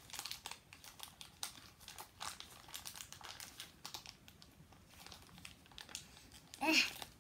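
Plastic blind-bag wrapper crinkling and rustling as it is worked open by hand, in quick irregular crackles. A short vocal sound comes near the end.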